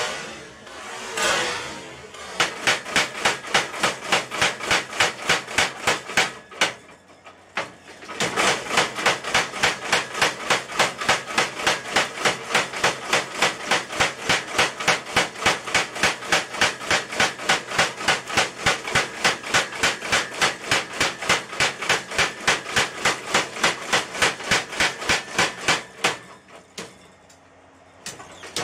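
Homemade tyre-driven mechanical power hammer pounding hot leaf-spring steel in fast, even blows, about four to five a second. The blows stop for a moment about a quarter of the way in, then run on until shortly before the end.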